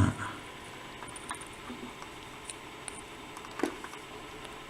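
Faint small clicks and taps of metal lock parts being handled as a plug follower is pushed against a euro cylinder's plug, with one slightly louder knock past the middle: the follower is too big to go in.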